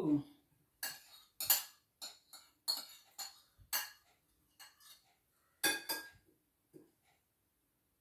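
Cutlery clinking against a ceramic bowl and plate as raspberries are put onto pancakes: about a dozen irregular sharp clinks, ending about seven seconds in.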